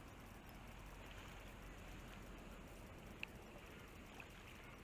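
Near silence: a faint, even outdoor background hiss, with one small tick a little over three seconds in.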